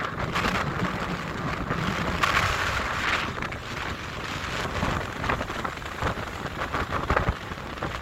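Rough surf breaking and washing up a pebble beach in strong wind, in surges of hiss over a steady rumble of wind buffeting the microphone.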